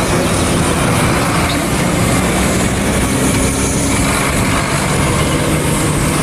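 Concrete mixer truck's diesel engine running steadily as the truck drives past, a low drone under a constant hiss of road noise.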